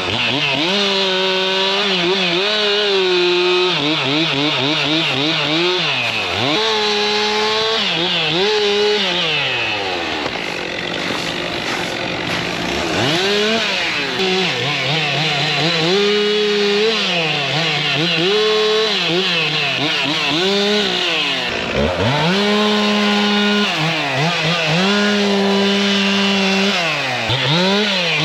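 Gas chainsaw revving up and dropping back over and over while cutting limbs, its pitch rising and falling every second or two, easing to a lower pitch about halfway through and again near the end.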